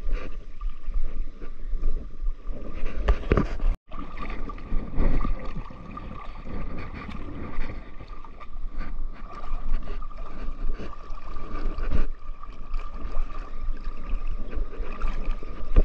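Small waves lapping and splashing against the angler's arm close to the microphone, with wind rumble on the microphone. The sound drops out for an instant about four seconds in, and a faint steady tone runs behind the water after that.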